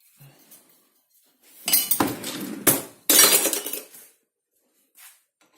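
Glassware and crockery clinking and clattering as dishes are handled, in two loud bursts about a second and a half in and again around three seconds, with a ringing edge.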